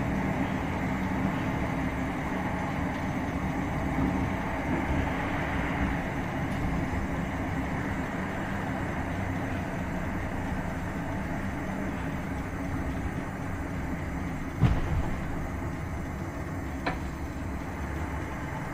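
Cabin sound of a Class 465/9 Networker electric multiple unit slowing into a station: a steady running rumble that gradually dies away. One sharp thump comes about three-quarters of the way through, and a lighter click follows near the end.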